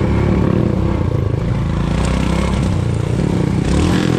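Royal Enfield Himalayan's single-cylinder engine running on the move, its pitch wavering slightly with the throttle, over the clatter and scrape of the bike riding a rough, rutted dirt trail.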